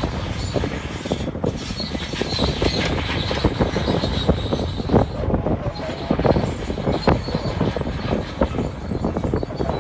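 Bulldozer working, with its engine running and its steel crawler tracks clanking, and frequent sharp knocks and clanks throughout.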